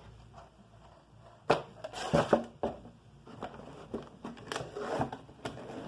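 Scattered knocks and clicks of small hard objects being handled and shifted about while someone rummages, starting about a second and a half in.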